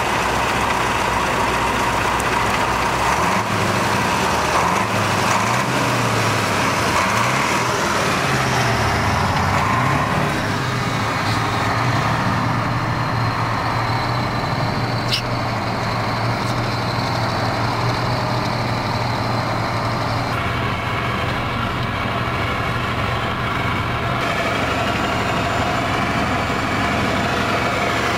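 KamAZ 5320 truck's V8 diesel engine running. Its pitch climbs and drops several times in the first ten seconds as the truck gets under way, then settles into a steady drone while driving.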